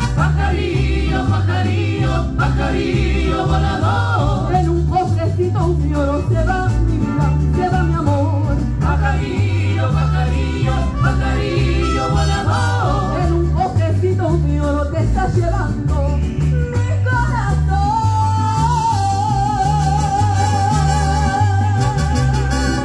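Live mariachi band playing an instrumental interlude: violins carry the melody over a steady, repeating bass line. Near the end, one long note with vibrato is held.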